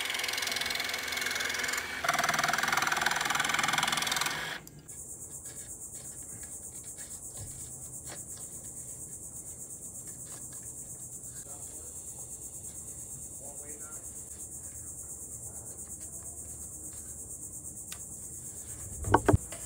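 A cordless jigsaw cutting plywood for about four and a half seconds, then a steady high drone of insects, with faint scratches of sandpaper on a wooden strip and two sharp knocks near the end.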